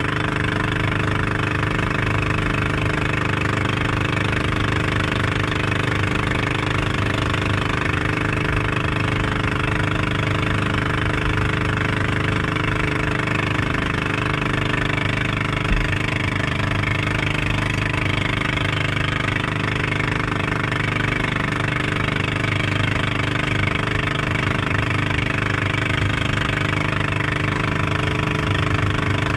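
Outrigger boat (bangka) engine running steadily at speed, with a steady rushing hiss of water and air over it.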